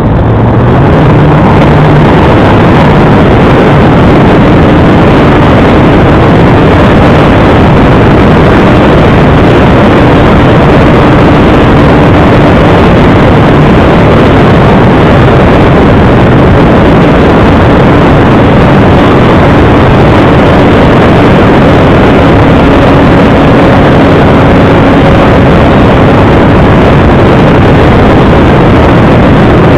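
Radio-controlled model Airvan airplane in flight, heard from a camera mounted on it: its motor running steadily under loud rushing wind noise, near full scale.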